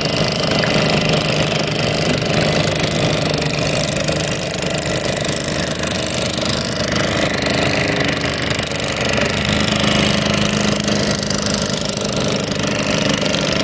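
An engine running steadily, a continuous drone with no change in level.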